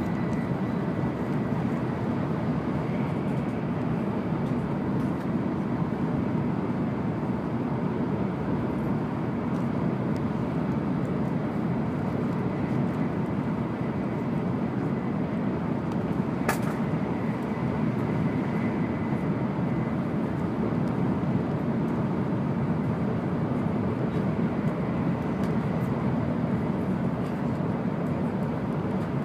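Steady running noise inside an N700 series Shinkansen cabin at speed: a constant low rumble with a faint high steady tone over it. A single sharp click about halfway through.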